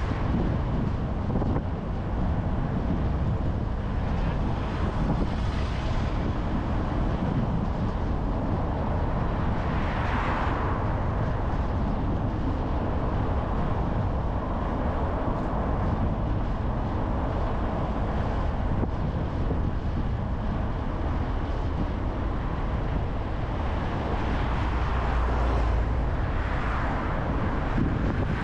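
Steady road and engine noise of a car being driven, mixed with wind on the microphone. Brief louder swells come about ten seconds in and again near the end.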